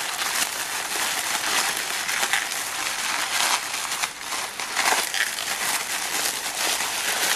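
Plastic bubble wrap crinkling and rustling continuously as it is handled and squeezed in the hands.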